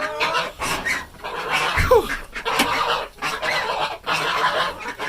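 A flock of chickens and ducks squawking and calling excitedly at feeding time, with several short calls falling in pitch.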